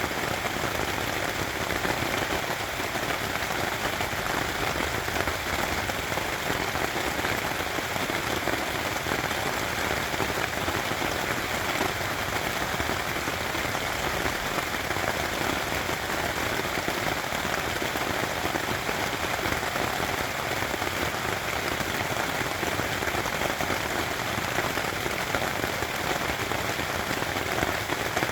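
Steady rain pattering on a tent's fabric, a dense patter of many drops.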